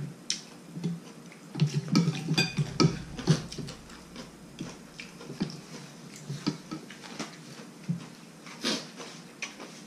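Two people eating nam ngiao noodle soup at close range: slurping and chewing, with spoon and chopsticks clicking against ceramic bowls at irregular moments.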